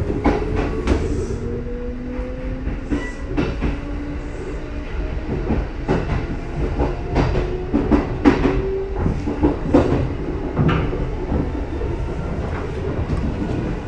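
Kintetsu 30000-series and 22600-series limited express train running at the platform, wheels clicking and knocking over rail joints under a low rumble. A motor whine rises slowly in pitch over the first few seconds, as when a train is accelerating.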